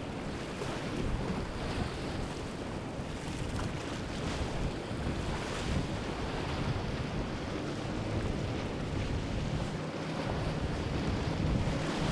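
Wind buffeting the microphone over the wash of waves and surf, with the low hum of a passing outboard-powered sportfishing boat and the spray off its hull, getting somewhat louder near the end.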